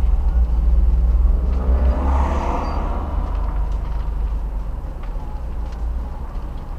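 A car driving past close by: its engine and tyre noise swells about two seconds in, then fades as it moves away, over a steady low rumble.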